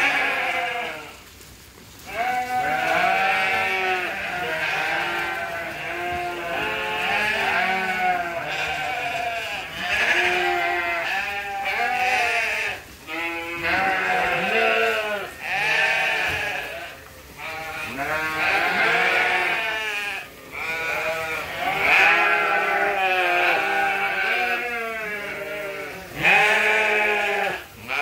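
A flock of sheep bleating at feeding time, many overlapping calls almost without a break, with a brief lull about a second in.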